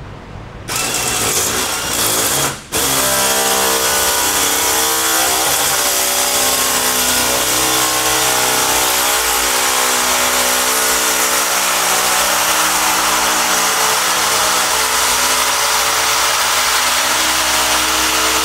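Pneumatic air nibbler cutting a straight line in sheet steel, a noisy, steady rapid chatter. It starts about half a second in, stops for a moment near three seconds, then runs on without a break.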